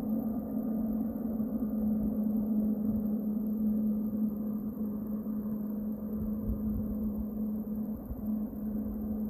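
Jet engines of a distant widebody airliner running as it moves across the airfield: a steady low drone with a constant hum and an uneven low rumble.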